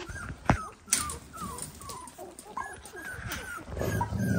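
Young Dalmatian puppies whimpering, a quick string of short high squeaks, one after another. Two sharp knocks come about half a second and a second in, and the noise grows louder near the end.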